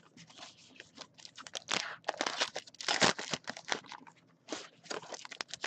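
Crinkling and rustling of trading-card pack wrappers being handled, an irregular run of crackles that is loudest about three seconds in, with a brief lull a little past four seconds.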